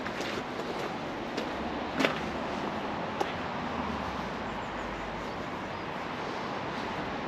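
Steady hiss of distant road traffic, with a low rumble swelling around the middle. A few sharp footsteps sound in the first three seconds.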